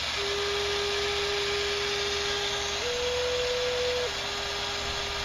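A handmade wooden Native American flute plays a long, steady, pure note. Near the middle it steps up to a higher note for about a second and a quarter, then drops back, all over a steady low hum. The held note reads as a flat A flat, so the flute is still too long for the key of A and needs a little cut off its end.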